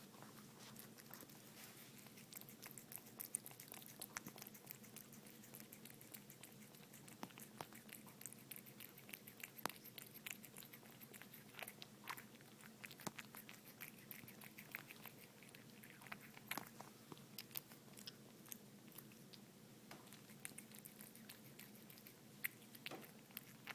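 Faint, irregular chewing and biting: quick crunchy clicks of food being eaten, over a low steady hum.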